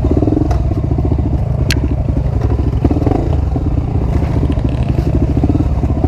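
Honda XR250 Tornado's single-cylinder four-stroke engine running steadily through a new Powercore 2 exhaust while riding a dirt trail, with clatter from the bike and a sharp knock about two seconds in.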